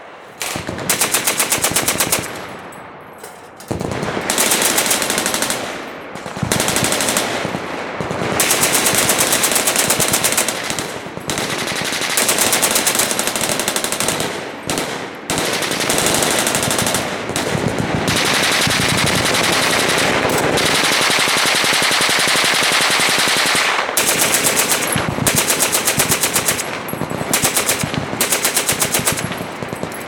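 Machine guns firing on a crowded firing line: long and short bursts of automatic fire from several guns, often overlapping, with brief lulls between them.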